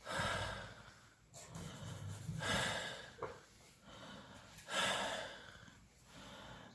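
A man's loud breathing, about three breaths in and out, demonstrating breathing without a snore: lying on the side with the head lowered keeps the tongue from falling back and the snoring stops.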